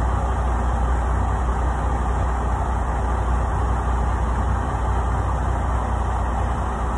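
Semi-truck diesel engine idling, heard from inside the cab: a constant low rumble.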